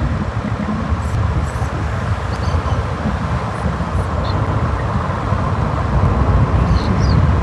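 Steady road and traffic noise of a vehicle driving along a street, a constant low rumble with a few faint short high chirps.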